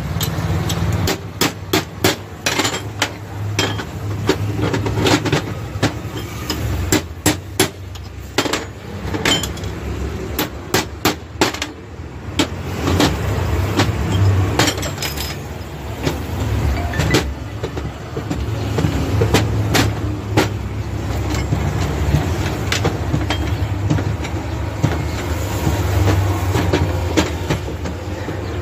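Small hammer tapping the steel parts of a car drive shaft's CV joint as its ball cage, ground down because it was tight, is seated: many sharp metal taps through the first twelve seconds, then fewer clicks as a shaft is worked in the joint, over a steady low rumble.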